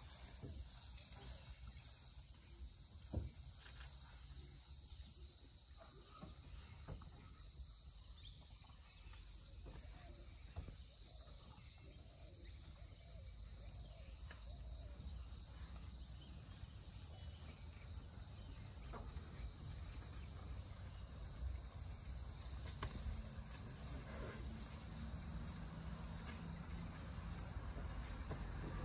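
Forest insects, crickets or cicadas, droning steadily at a high pitch, over a low rumble of wind and a few faint knocks.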